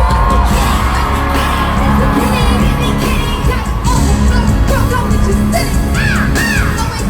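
Loud live concert sound through the arena PA: a bass-heavy backing beat plays steadily while fans scream and cheer over it in short, high, arcing yells.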